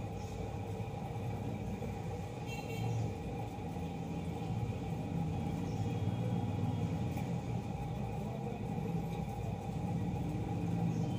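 Steady low background rumble with a faint constant hum over it; no distinct event stands out.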